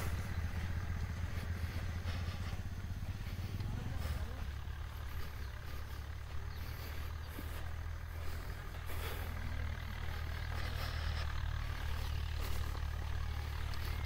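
A small engine idling steadily, giving a low, even hum.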